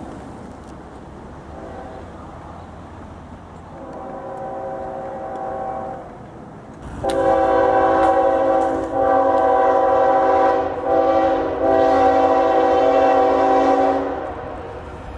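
Multi-chime locomotive air horn sounding a chord of several tones. Two fainter blasts come first; from about seven seconds in it sounds loud in a long, long, short, long pattern, the grade-crossing signal. A low rumble runs underneath.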